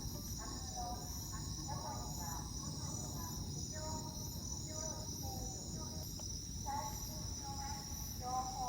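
Steady night chorus of crickets, an even high trilling that holds throughout, with short low pitched calls breaking in every second or so.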